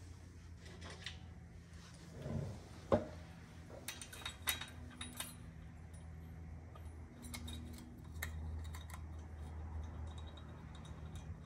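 Scattered metallic clicks and clinks as the clutch pieces of a Polaris RZR Pro XP 4's belt-drive (CVT) clutch are handled and fitted back together, the sharpest click about three seconds in.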